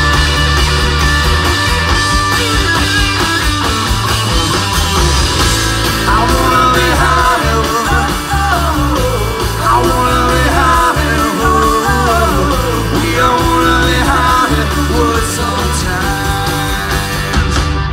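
Live rock band, with electric guitars, bass and drums, playing the close of a song, with a wavering lead line over it from about a third of the way in. The music stops abruptly at the end.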